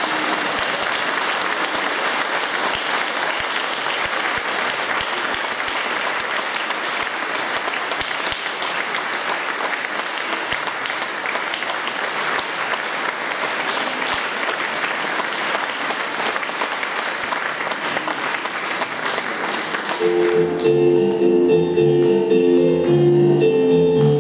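Audience applauding steadily for about twenty seconds. Near the end the clapping gives way to instrumental music starting up.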